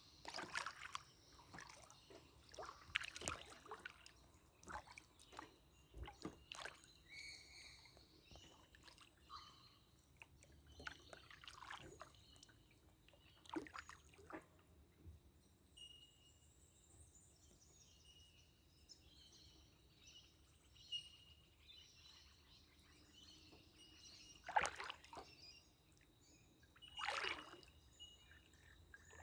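Canoe paddling: faint water sloshing and trickling off the paddle at each stroke, every few seconds. Short bird calls sound faintly in the background during the second half.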